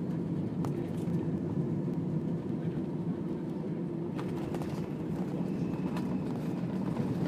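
Steady low rumble in the cabin of an Airbus A320 taxiing on the ground after landing, with a few faint ticks or knocks over it.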